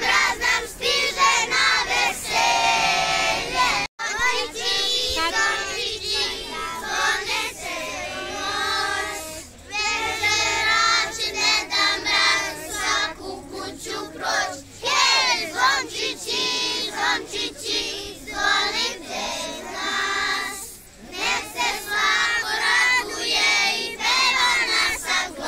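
A group of first-grade children singing a song together. The sound cuts out for an instant about four seconds in.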